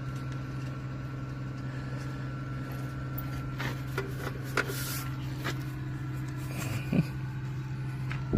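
A steady motor hum runs throughout, with a few light metal knocks and clanks from the steel battery-box side shield of a John Deere tractor being handled and pulled off.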